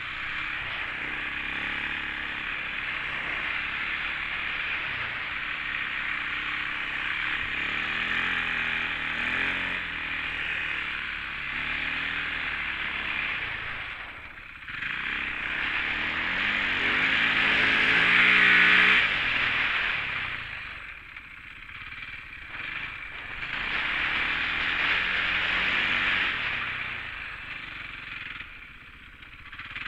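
Rally motorcycle engine pulling through deep sand, rising in pitch under throttle several times and easing off briefly between, loudest about two-thirds of the way in. A steady rush of wind over the helmet-mounted microphone runs under it.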